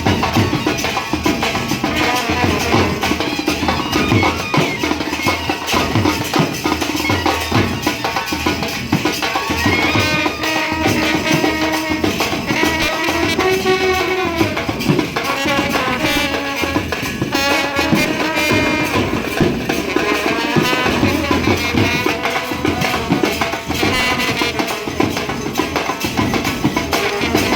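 Indian brass band playing a wavering melody on horns over continuous drumming.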